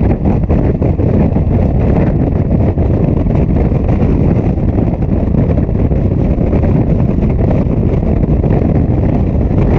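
Steady wind buffeting on a rider-mounted camera's microphone while cruising at highway speed on a Yamaha FJ-09 sport-touring motorcycle, with the bike's running drowned in the wind rush.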